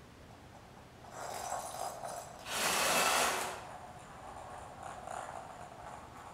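Small robot car's electric drive motors whirring in short bursts under PWM speed control; the loudest burst, about a second long, comes near the middle, with a fainter one near the end.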